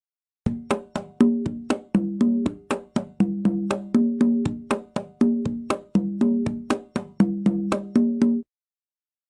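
A drumming loop of sharp, pitched strokes in a steady repeating rhythm, about four strokes a second, moving between two low drum pitches. It starts about half a second in and stops abruptly near the end.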